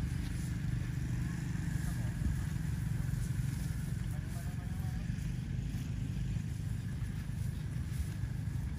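A vehicle engine idling steadily: a low, even hum.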